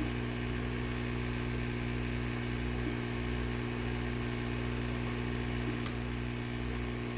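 Heat gun running with a steady motor-and-fan hum, as it heats the iPad glass to soften the adhesive. A single sharp click a little before the end.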